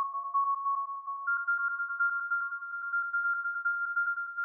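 Electronic music: sustained synth tones pulsing rapidly, with the chord shifting up about a second in.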